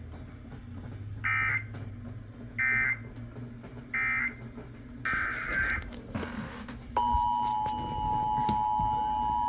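Emergency Alert System data signal: three short, identical warbling digital bursts about a second and a half apart, the end-of-message code closing the previous alert. A longer burst follows. About seven seconds in, the steady two-note EAS attention tone starts, announcing the next alert.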